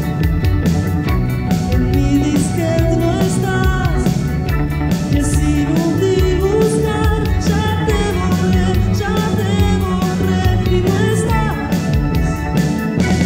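Rock song with a female lead singer over electric guitar, keyboards and bass, with a steady beat.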